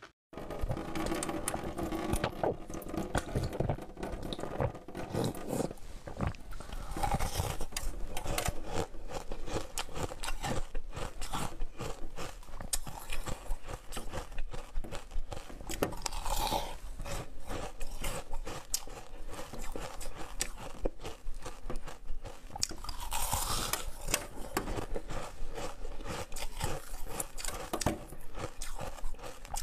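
Raw purple napa cabbage being bitten and chewed: many crisp crunches in quick, irregular succession.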